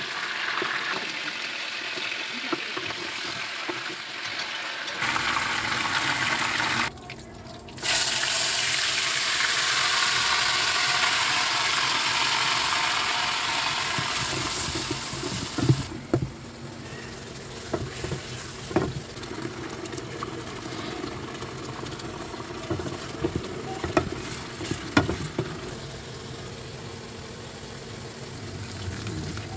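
Oil sizzling in a wok as chicken drumsticks and then chopped onion fry, stirred with a wooden spatula. The sizzle is loudest in the middle, then dies down to a softer bubbling with scattered knocks and scrapes of the spatula against the pan.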